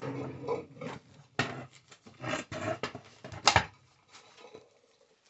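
Clatter of things being handled and moved: uneven rustles and knocks, with one sharp knock about three and a half seconds in.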